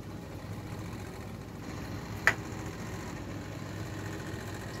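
A steady low machine hum, with a single sharp click about two seconds in.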